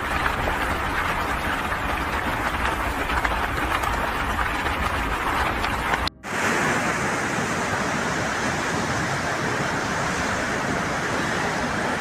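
Floodwater rushing through a street, a steady loud rush of water noise. It cuts out for a moment about six seconds in, then carries on with less low rumble.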